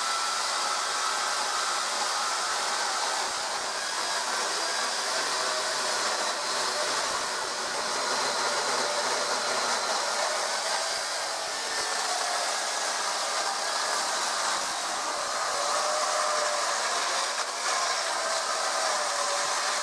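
Dolmar electric chainsaw running steadily while cutting into a log, its pitch wavering slightly as the chain bites into the wood.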